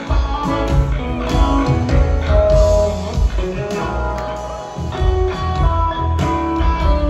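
Live band playing: acoustic guitar over upright bass, with piano and pedal steel guitar.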